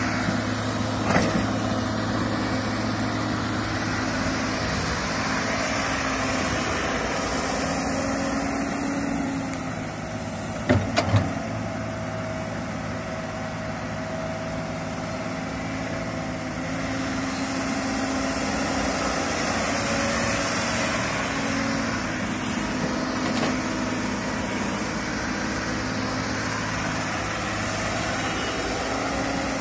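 Komatsu crawler excavator's diesel engine running steadily, with a few short knocks, the loudest about eleven seconds in.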